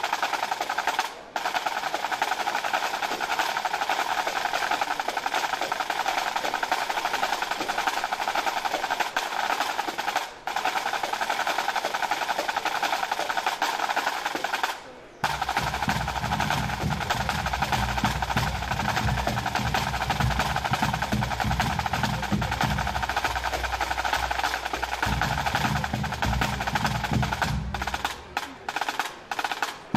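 Pipe band drum corps playing a drum salute: tight snare drums rolling and drumming steadily, with a few brief breaks. About halfway through, the bass and tenor drums come in underneath. Near the end there are a few sharp, separated strokes.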